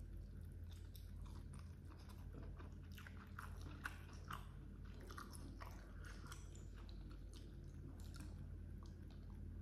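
Close-up chewing of a mouthful of rice with baby squid and petai, many small wet clicks and smacks over a steady low hum, with one sharper click about four seconds in.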